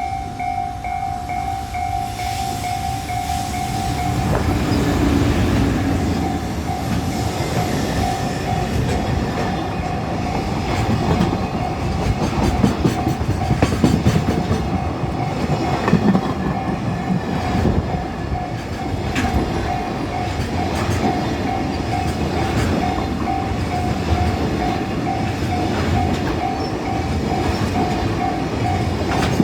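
Japanese level-crossing warning bell ringing as a freight train passes over the crossing. From about four seconds in, the train's wheels rumble and clatter on the rails under the repeating bell tone.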